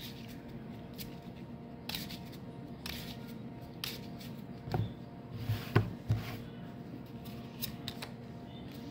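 Neapolitan playing cards shuffled by hand: a few scattered soft snaps and rustles of the cards over a faint steady hum.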